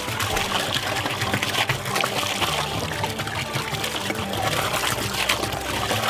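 A steady stream of soda pours from a large upturned plastic bottle into a metal barrel and splashes onto foamy liquid at the bottom.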